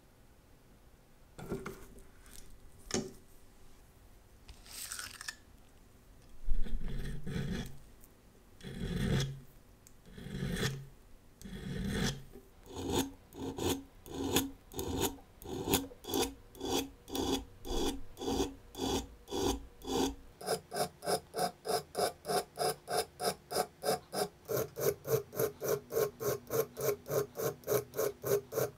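Hand file rasping back and forth across the stainless steel case of a Seiko 6309 diver's watch held in a vise, smoothing the scratched, dented lug edge. The strokes start out slow and uneven, settle into a steady rhythm of about two a second, then quicken to about three a second, each with a slight ringing tone from the steel.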